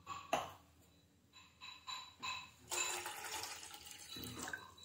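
Water poured from a glass into a stainless-steel saucepan, splashing steadily for about two seconds from a little past halfway. A sharp knock comes near the start and is the loudest sound.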